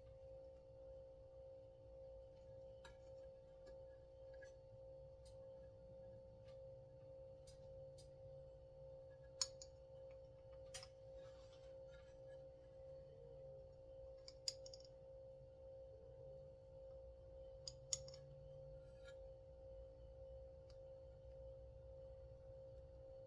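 Near silence with a steady faint hum, broken by a handful of small sharp clicks as parts of a chainsaw's recoil starter are handled and fitted during reassembly.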